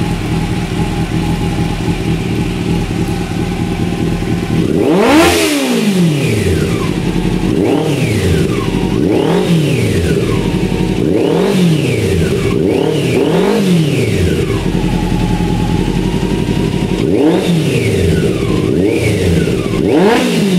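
600cc motorcycle engine running on fuel vapour from a homemade gasoline vaporizer (bubbler), idling steadily, then revved repeatedly in short throttle blips, each climbing in pitch and falling back to idle.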